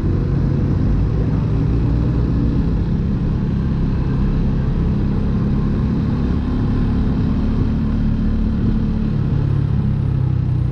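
Rusi Classic RC250 motorcycle engine running under way, heard from the rider's seat. Its steady note sits a little higher through the middle and drops in pitch near the end.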